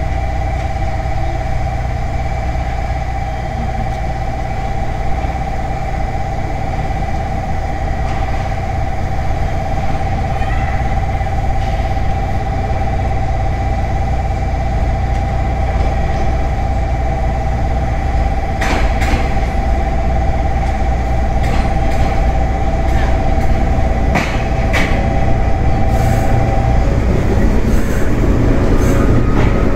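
415 series 500-subseries electric multiple unit pulling in to the platform, its running noise growing louder toward the end. Under it runs a steady pair of electronic tones, which stops a few seconds before the end, and sharp clicks come now and then in the second half.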